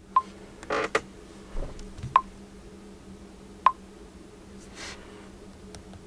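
Short, sharp touch clicks as a Xiaomi Redmi 10C smartphone's touchscreen is tapped through its settings menus. There are three clicks, a second or two apart, with soft rustling of hands between them.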